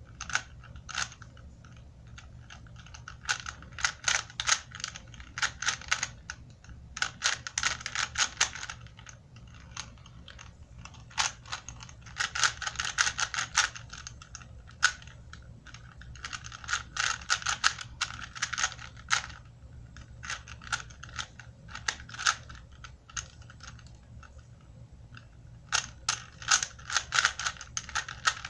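A Rubik's brand cube being turned fast by hand: rapid plastic clicking and clacking of the layers. The clicking comes in runs of one to three seconds with short pauses between.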